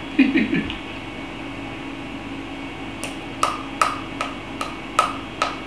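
A steady run of sharp clicks, about two and a half a second, starting about three seconds in, over a low steady hum.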